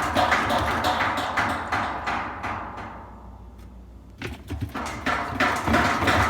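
Whirlpool WTW4816FW2 top-load washer's tub bouncing on its suspension after being pushed down, rattling and knocking in a rapid run that dies away about three seconds in, then starts again after a pause when the tub is pushed once more. The tub keeps bouncing far more than the one or two times it should, a sign of worn suspension rods and springs.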